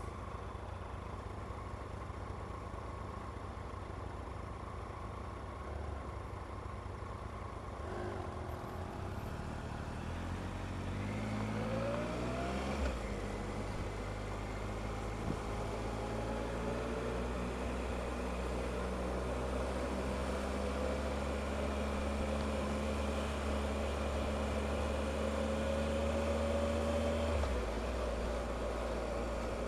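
Motorcycle engine ticking over at a standstill, then pulling away and accelerating, its pitch rising through the gears with changes about thirteen seconds in and near the end.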